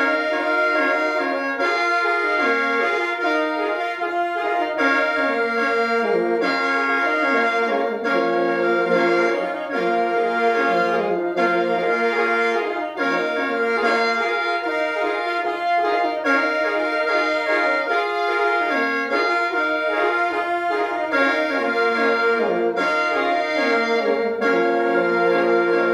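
Two khaens, Lao bamboo mouth organs pitched in F, played together in lai noi mode on a khap Xieng Khouang tune: continuous reedy chords with steady drone notes under a moving melody.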